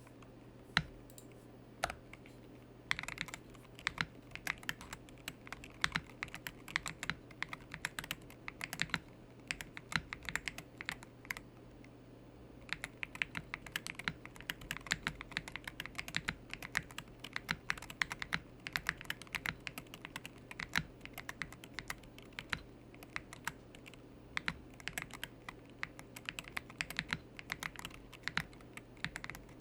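Typing on a Wooting 60HE+ keyboard with Gateron Magnetic Jade switches in a custom aluminium case: a run of sharp keystroke clicks, a few scattered strokes at first and then a fast steady stream, with a brief pause about twelve seconds in.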